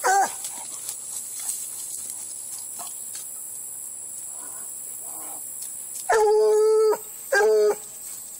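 Bluetick coonhound baying loudly: one short bay at the start, then two drawn-out bays about six and seven seconds in, the first almost a second long.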